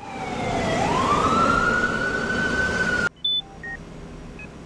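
Emergency vehicle siren wailing over traffic noise, its pitch dipping and then rising to hold high; it cuts off suddenly about three seconds in. After the cut, a hospital patient monitor gives short electronic beeps at several different pitches.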